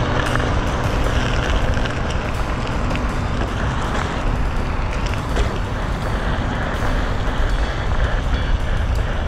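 Steady road rumble and rolling noise of a Onewheel XR's single wheel riding over rough asphalt and pavement, with small irregular bumps. The tail of background music fades out in the first second or so.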